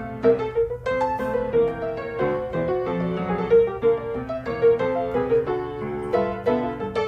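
Background piano music, a busy run of notes several to the second.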